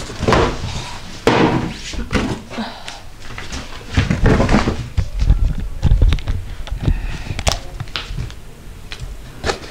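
Handling noise: a cardboard mailer box being picked up and set down, with repeated knocks and thunks, and the camera being carried, which puts low rumbling bumps on the microphone.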